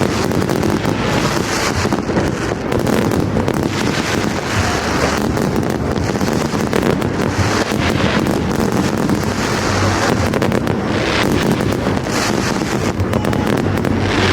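Dense fireworks display: many rapid cracks and bangs running together into a steady, unbroken din, with wind on the microphone.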